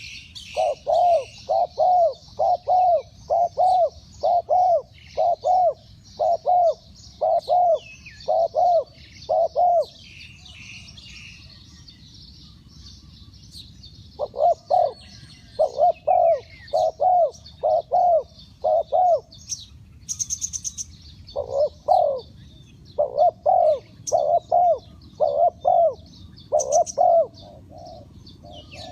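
A dove coos in three long runs of short, evenly spaced notes, about two a second, with pauses between the runs. Small birds chirp faintly at a much higher pitch throughout.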